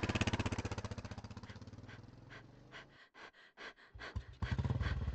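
Small motor scooter engine running with a rapid putt-putt that fades away over the first three seconds. A few separate pops follow, then another rapid putt-putt sets in about four and a half seconds in.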